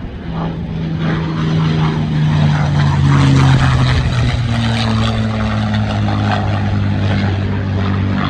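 P-51 Mustang's liquid-cooled V-12 piston engine and propeller droning on a low fly-by. It grows louder to a peak about three seconds in, and its pitch falls steadily as the aircraft passes.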